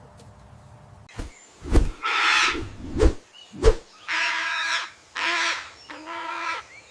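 A bird's harsh calls, repeated about five times, each under a second long.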